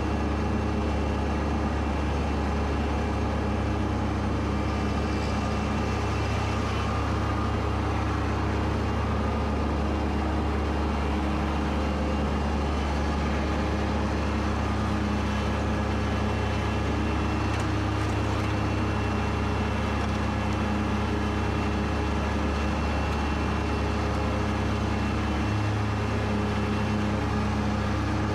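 Kubota B2601 compact tractor's three-cylinder diesel engine running steadily at working speed while mowing thick, wet grass, with a slight change in its note about 25 seconds in.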